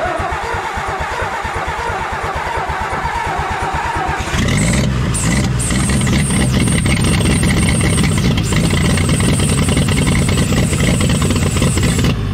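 1962 Ford F600's 262 cubic-inch inline-six engine cranking on the starter with an even pulsing beat for about four seconds, then catching and running steadily, noticeably louder.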